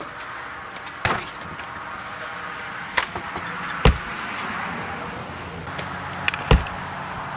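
Wooden backyard gate being unlatched and swung open: a few sharp clicks and knocks, the loudest about four seconds in and again near the end, over a steady outdoor hiss.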